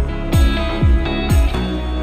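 Background music with a steady beat: deep kick-drum hits about twice a second under sustained melodic notes. The beat drops out near the end.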